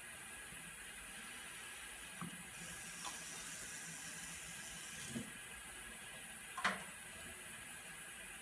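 Hot deionized water dispensed from a bottle-top dispenser into a glass filter crucible on a filtering device, a rush of pouring lasting about two and a half seconds, over a steady hiss. A few short clicks of lab glassware and fittings, the loudest near the end.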